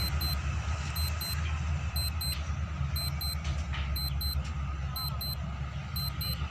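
Railway level-crossing warning bell ringing: pairs of short electronic dings, about one pair a second, the signal that the crossing is closed for a passing train. Under it runs a steady low rumble.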